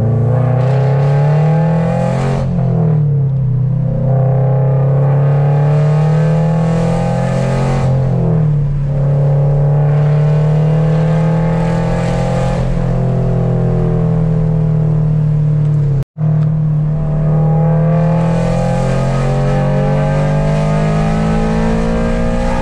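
Exhaust of a 2023 Toyota GR86's 2.4-litre flat-four with catless unequal-length headers, heard from inside the cabin while driving. The engine note rises under acceleration, drops at a gear change about two seconds in, then holds steady at cruising speed with small rises and dips. It cuts out for an instant about sixteen seconds in.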